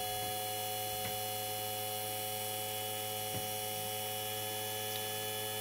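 Steady electrical hum from a home-built three-phase inverter rig driving a mains-rated AC motor at close to 300 V on the DC bus. It holds several fixed tones, and the builder thinks the magnetic cores are saturated at this voltage.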